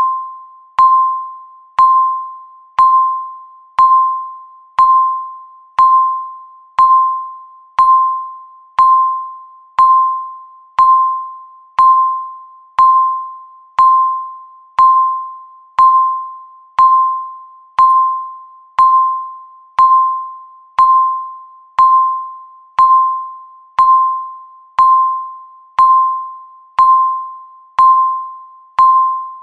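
Countdown-timer beep: a single chime-like electronic tone struck once every second, each one fading away before the next, marking the seconds left.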